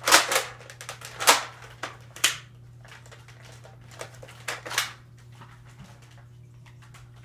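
Nerf Long Strike spring-powered dart blaster being worked and fired: a string of sharp plastic clacks and snaps. The three loudest come in the first two and a half seconds, with fainter clicks about four to five seconds in.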